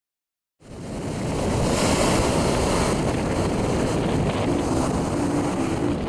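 Surf breaking and washing up the beach, with strong wind rushing over the microphone. The sound fades in after a brief silence at the start, and faint music notes enter about four and a half seconds in.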